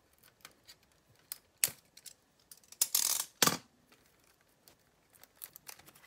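A small knife cutting into plastic packaging: scattered clicks and scrapes, with a louder scraping slice about three seconds in.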